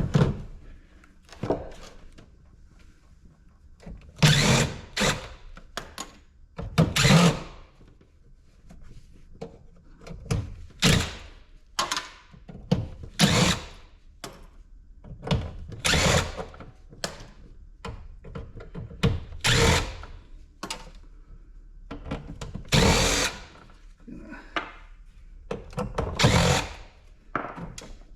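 Power drill running in short bursts every second or two, driving screws out of the ice maker's base.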